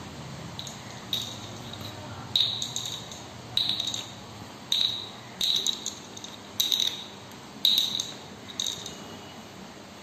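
A bottle cap being knocked and dropped against a hard surface by a parrot at play: about nine sharp clinks at irregular intervals of roughly a second, each with a brief high ring.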